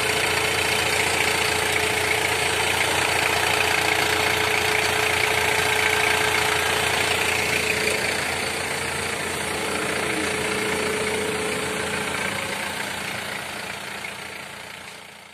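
Toyota 1DZ-II four-cylinder diesel engine in a Toyota 8FD30 forklift, idling steadily with a steady whine over it. The sound fades out near the end.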